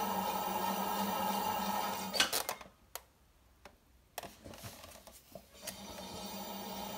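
Electric potter's wheel motor humming steadily. About two seconds in the hum stops after a sharp knock, leaving near quiet with a few clicks, and it comes back near six seconds in.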